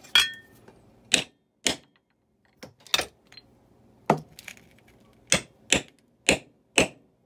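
A metal hand tool taps about ten times, unevenly spaced, on the metal seal plate of a 1959 Evinrude 10 hp outboard's lower unit, seating a new seal. The first tap gives a brief metallic ring.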